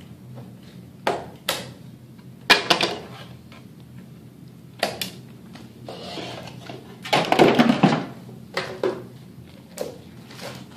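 Scissors snipping the edge of a thin plastic stormtrooper shin piece in a few sharp cuts, then the stiff plastic piece clattering and crackling as it is handled and set down on the table, loudest about seven seconds in, with a few lighter knocks near the end.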